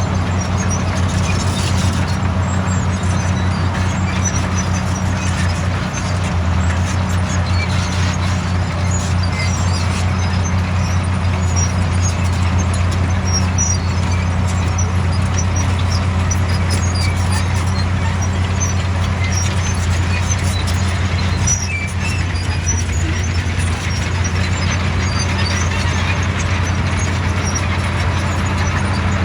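Diesel engine of heavy earthmoving machinery running steadily with a deep, even drone, with faint high squeaks and clinks over it.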